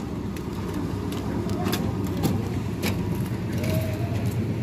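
Engine of a concrete mixer running steadily while concrete is mixed for a beam pour, with a few sharp metallic knocks and clinks at intervals.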